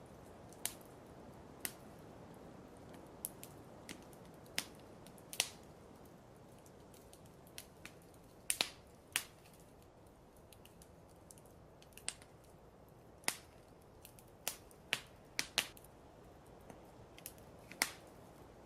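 Fireplace fire crackling: irregular sharp pops and snaps over a steady low hiss.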